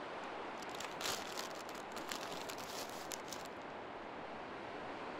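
Paper bag and napkin crinkling in a series of short, faint rustles for a couple of seconds, over a steady outdoor hiss.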